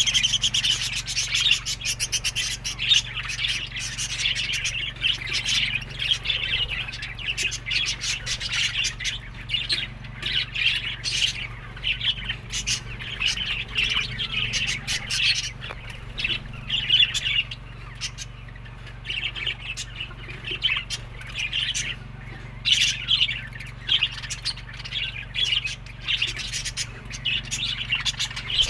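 A flock of budgerigars chattering with continuous overlapping chirps and squawks, over a steady low hum.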